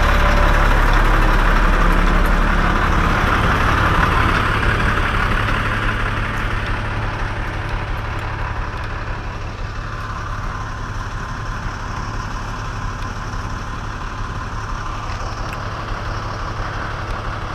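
A large engine runs steadily, louder for the first few seconds, then easing down and settling to an even idle.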